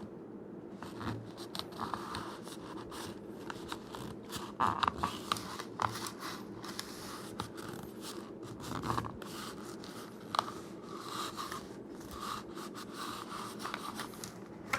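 Kydex holster being handled and worked: irregular scraping and clicking of hard plastic, over a steady low hum.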